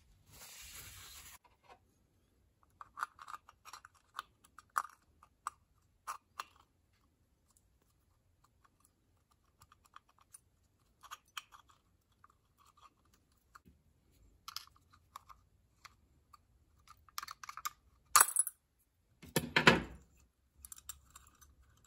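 Small metal distributor parts being handled: light clicks and taps as a points breaker plate is fitted into a Ford flathead distributor body, with a short rustling noise in the first second and a couple of louder clacks near the end.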